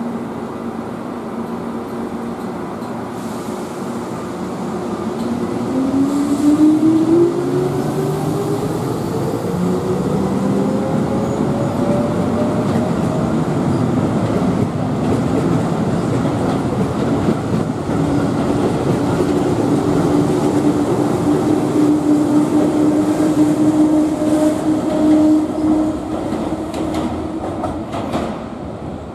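Keihan 8000 series electric train pulling away: the traction motors' whine climbs in pitch as it accelerates, over a constant rumble of wheels on rail, then settles into a steady hum as it runs off, fading near the end.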